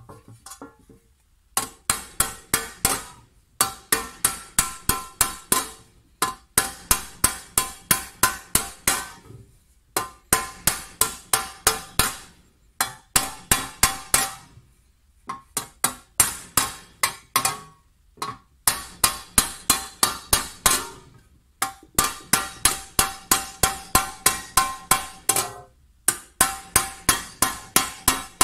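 Hand hammer striking a copper tray over a wooden block, raising the sheet: quick blows about five a second in runs of a dozen or so with short pauses between, each blow ringing briefly like a bell.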